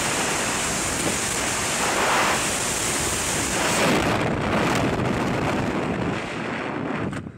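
Freefall wind rushing hard over a skydiving camera's microphone. About four seconds in the rush turns gusty and uneven, then falls away sharply near the end as the parachute deploys and the fall slows.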